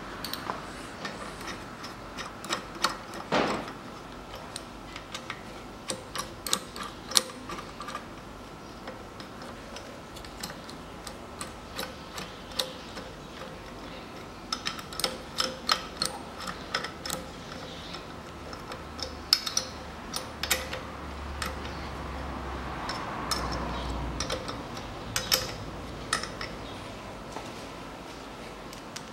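Socket ratchet clicking in short runs, tightening the cylinder head bolts of a small piston air compressor.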